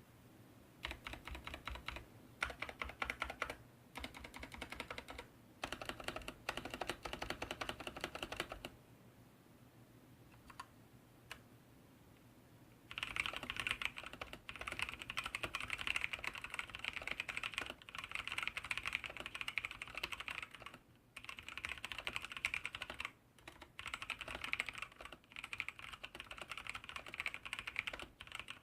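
Mechanical keyboard with stock, untuned Outemu Brown tactile switches being typed on: fast runs of key clacks, a pause of a few seconds with only a couple of single keystrokes, then longer, louder bursts of typing. The uploader finds these switches strongly scratchy and says the aluminium case does not fully tame its hollow ring.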